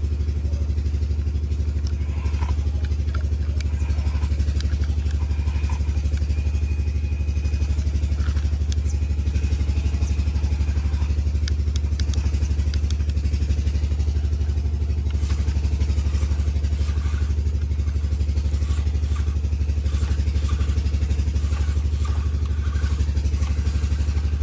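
An engine running steadily at an even idle, with light clatter and clicks over it.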